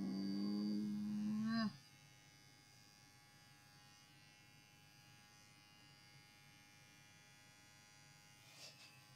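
A Persian cat gives one drawn-out low yowl of protest for under two seconds while being clipped. An electric pet clipper then hums faintly and steadily, with a brief faint cry near the end.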